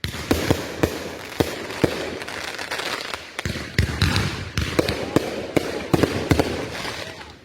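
A barrage of consumer fireworks going off: many sharp bangs and pops, several a second, over a dense crackling hiss.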